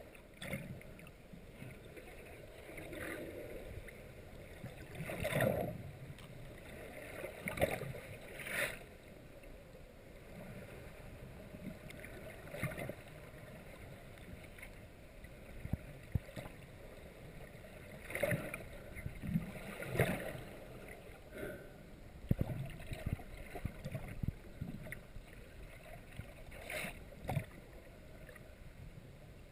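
Water heard underwater through a GoPro Hero 2's waterproof housing: a muffled steady rush, broken every few seconds by short swishing surges as water moves around the camera.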